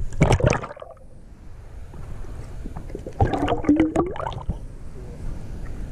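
Splashing as a GoPro in a waterproof case plunges into river water, then muffled underwater gurgling and bubbling, with a louder burst of bubbling about three seconds in.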